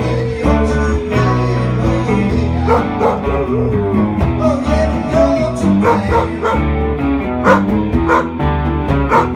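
A dog howling along to guitar music, its long wavering howls sliding in pitch near the start and again about four to five seconds in.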